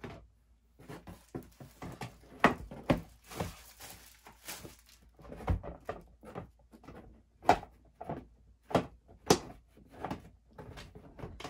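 Plastic disc golf discs being handled and lifted out of a cardboard shipping box: irregular knocks and thunks of the discs against each other and the box, with some rustling.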